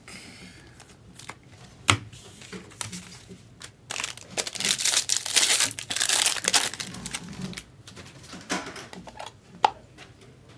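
Foil trading-card pack being torn open and crinkled, a dense crackling rustle starting about four seconds in and lasting about three seconds. A few sharp clicks, one before and two after the rustle.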